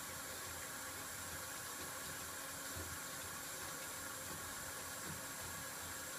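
Steady background hiss with no clear event, with a couple of faint soft bumps.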